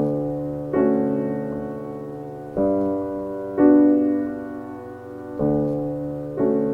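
Background music: slow piano chords struck about every second or two, each ringing on and fading before the next.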